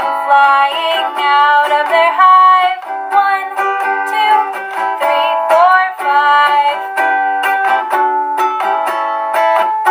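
Music: a children's song, a sung melody over ukulele accompaniment.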